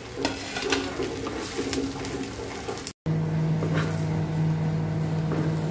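A metal spatula scrapes and clicks against a frying pan as fried rice is stirred and mixed. After a brief break about three seconds in, a steady low hum runs under the faint stirring.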